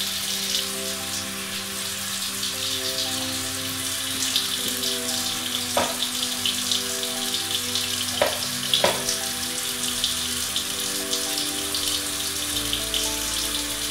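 Background music of soft, sustained chords over a steady crackling, rain-like hiss. A low bass line comes in near the end, and a few sharp clicks fall around the middle.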